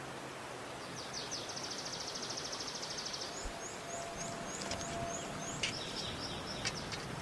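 A small songbird singing: a fast high trill about a second in, then a run of short slurred notes, over a steady rushing background. A few sharp clicks come near the end.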